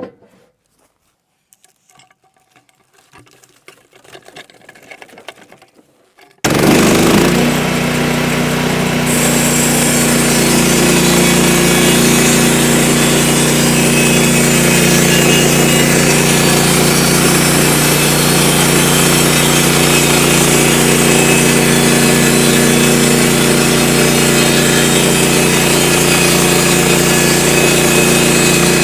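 Faint scattered knocks, then about six seconds in a Woodland Mills portable band sawmill starts abruptly and runs loud and steady, with its engine's even hum beneath the saw noise.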